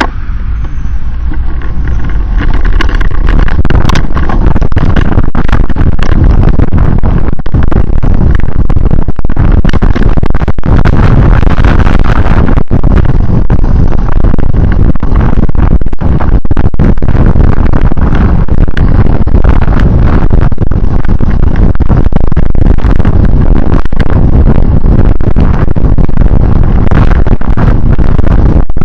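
Loud, steady travelling noise of a vehicle moving through rain, with many sharp crackles; it builds over the first two seconds, then holds.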